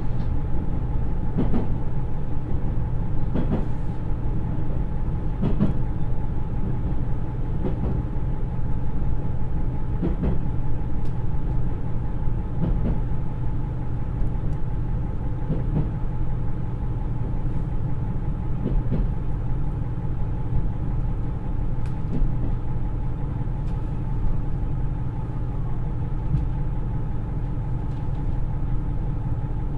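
Onboard running sound of a JR East KiHa 110 diesel railcar: its Niigata DMF13HZA turbo diesel engine runs steadily over a continuous rumble, with short clicks every two to three seconds.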